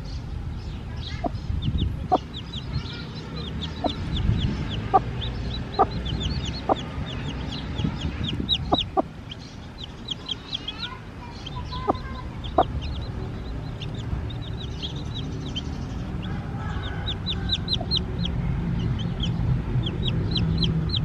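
Newly hatched chicks peeping: many rapid, high-pitched, falling cheeps, with the broody hen giving short clucks now and then.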